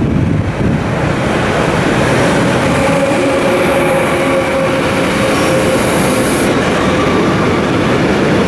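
DB Cargo class 189 (Siemens EuroSprinter) electric locomotive running through with a container freight train, then the container wagons rolling past close by with a steady din of wheels on rail. From about two seconds in, a thin steady whine rides over the wheel noise.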